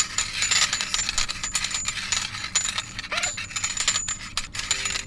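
Fast-forwarded sound of whiskey glasses being shuffled around on a table: a dense run of quick clinks and knocks.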